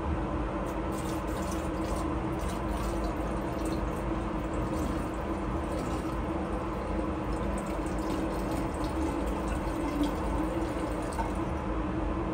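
Acetonitrile poured from a bottle into a glass graduated cylinder, topping it up to the 700 mL mark: a steady pouring trickle that starts about a second in and stops near the end.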